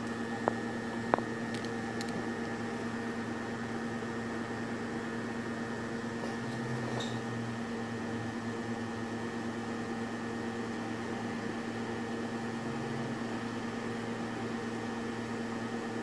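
Steady machine hum holding several unchanging tones, with two light clicks about half a second and a second in.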